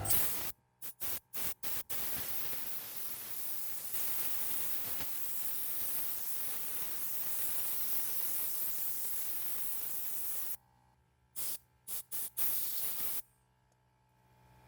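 Compressed air from a compressor's blow nozzle blowing dust out of a laptop keyboard: a few short blasts, one long steady blast of about eight seconds, then several more short blasts.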